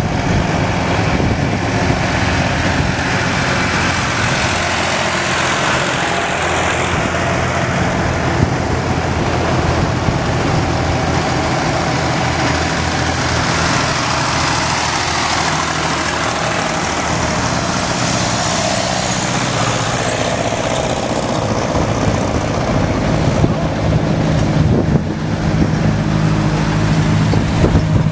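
Old farm tractor engines running as a line of tractors drives past one after another, a steady low engine note over road noise. The engine sound grows louder in the last few seconds as the next tractor comes close.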